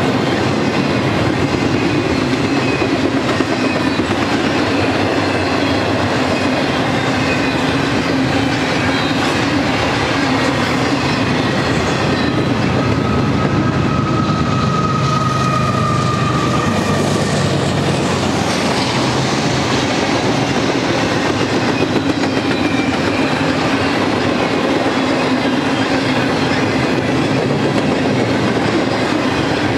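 A BNSF double-stack container train rolling past at trackside: a continuous noise of steel wheels on rail with clickety-clack from the wheels over the rail joints. About halfway through, a pair of mid-train distributed-power diesel locomotives goes by. Their engines add a deeper drone, and a high steady whine is heard for a few seconds.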